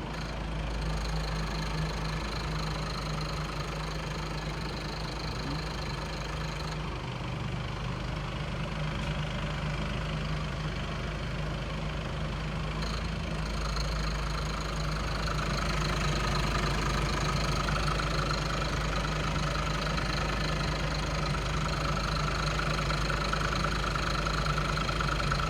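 Skoda Octavia's EA288 four-cylinder TDI diesel engine idling steadily with a whining tone, the noise the owner finds goes away when the air conditioning is switched on. A high whine drops out about seven seconds in, and a lower whining tone grows louder from about halfway through.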